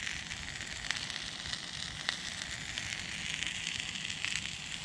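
Hot dog sausages sizzling on a hot cast iron griddle: a steady frying hiss with a few faint pops.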